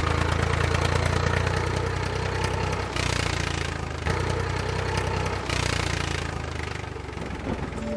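Farm tractor's diesel engine running steadily as the tractor drives by, growing quieter near the end.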